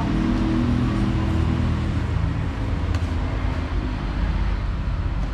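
Steady low rumble of street traffic, with an engine hum that fades away over the first couple of seconds. A single light click comes about three seconds in.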